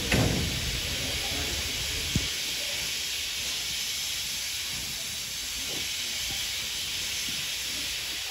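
Steady hiss of steam from a standing steam tank locomotive, with a thump right at the start and a single sharp click about two seconds in.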